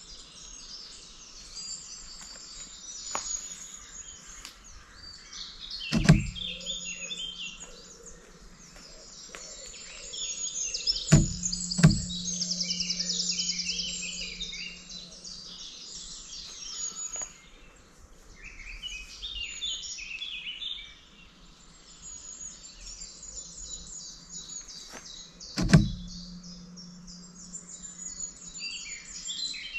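Woodland birds chirping and singing, with a fast trill a third of the way in. Four sharp knocks, twice in quick succession, each followed by a low steady hum for a few seconds, are the loudest sounds.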